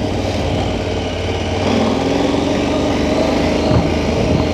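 KTM 1290 Super Adventure's V-twin engine running at low speed while the bike is ridden off-road, steady, picking up slightly a little under two seconds in.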